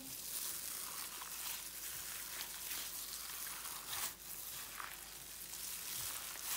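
A hand in a plastic glove mixing raw minced beef with yogurt, fried onions and spices in a stainless-steel bowl: a soft, continuous wet mixing noise with a few sharper squelches, the clearest about four seconds in.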